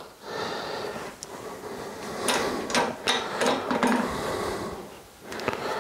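Metal parts being handled and set up on a hydraulic shop press: a motorcycle steering stem and triple clamp clinking and knocking against the press bed and spacer, about half a dozen sharp clicks over a low rustle of handling.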